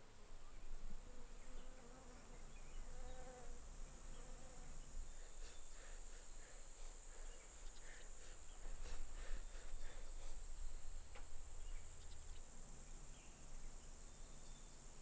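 Steady, high-pitched chorus of insects in summer grass, with a few faint clicks and ticks in the middle.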